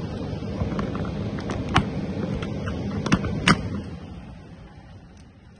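Frigidaire window air conditioner running, its fan blowing with a steady rush and low hum, while a few sharp knocks and clicks sound. The running sound dies away over the last second or two.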